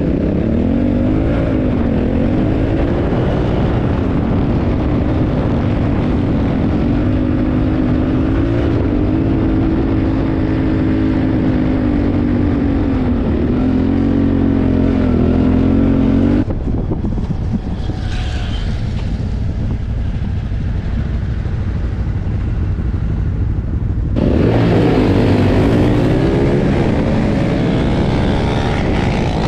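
Motorcycle engines running and revving, the pitch rising and falling, with sudden changes of sound at two cuts; from about 24 s on, a louder engine with a wide rushing hiss, heard from a moving bike.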